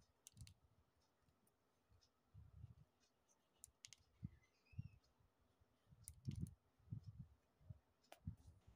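Faint, scattered plastic clicks from a lotion pump bottle and its pump nozzle being handled, with soft low bumps from the handling in between.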